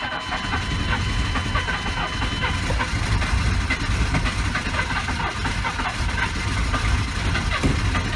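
Starter cranking a cold GM 6.5-litre turbo-diesel V8, which turns over steadily for the whole stretch without catching: the cold engine is hard to start.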